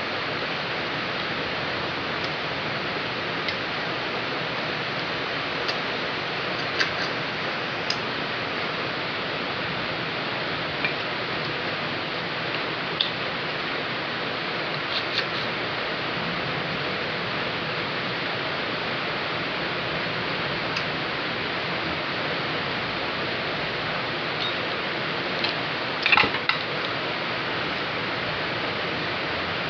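Heavy rain, a steady even hiss, with a few sharp small clicks scattered through it and a short cluster of clicks near the end.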